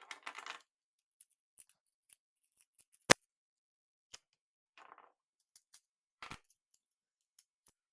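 Plastic magnetic building tiles being handled and snapped together: light rustling and scattered small clicks, with one sharp, loud snap about three seconds in.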